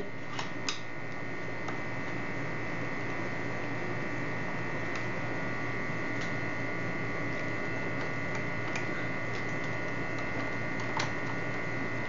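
Steady electrical hum with a high whine, and a few faint, scattered clicks of a screwdriver working the retaining screw of a mortise lock's cylinder.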